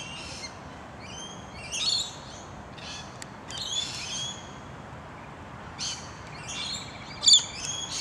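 A pair of galahs calling to each other in short, high-pitched calls, a group every second or two, the loudest near the end.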